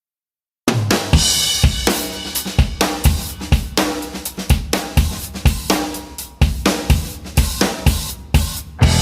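Background music with a drum kit playing a steady beat, about two kick-and-snare hits a second under cymbals, starting suddenly a little under a second in after total silence.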